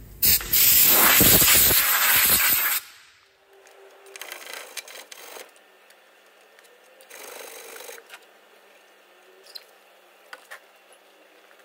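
A loud rushing noise for nearly three seconds at the start, cutting off suddenly. Then a hand wire brush scrubs the rusty brake caliper carrier clamped in a vise in short scratchy stretches, and brake cleaner is sprayed on it, with a few light clicks near the end.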